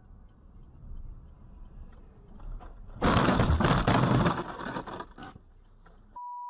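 A sudden loud crash of snow and debris thrown by a skidding semi-trailer truck striking the dashcam car's windshield, three seconds in, lasting about a second and a half before it dies away under low road rumble. Near the end comes a short steady beep.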